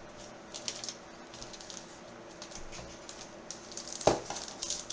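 Trading cards and packaging being handled on a table: scattered light clicks and rustles, with one sharp knock about four seconds in.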